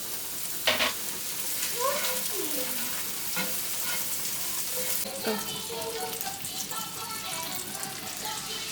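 Food sizzling in a frying pan, a steady hiss that eases about five seconds in.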